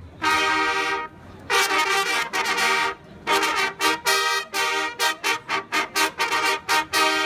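A corps of fanfare trumpets playing a fanfare in unison: a few long held notes, then a quick run of short repeated notes, ending on a long held note.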